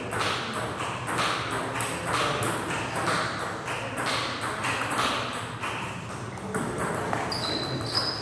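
Table tennis ball being hit back and forth in a doubles rally, sharp clicks of paddle and table bounces at about two a second. A short high squeak near the end.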